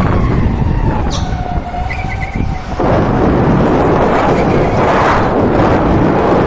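Electric go-kart running at speed, heard from an onboard camera: a heavy rumble of wind and tyres on the track. When the rumble eases about a second in, the electric motor's faint steady whine shows through.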